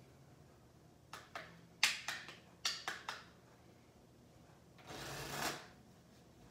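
Playing cards handled on a felt table: a quick run of sharp taps and clicks as packets are squared and set down, then a riffle shuffle, two half-packets fluttering together in one brief rush about five seconds in.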